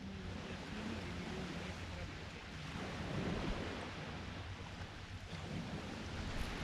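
Sea surf washing on the beach, swelling about halfway through, with wind buffeting the microphone.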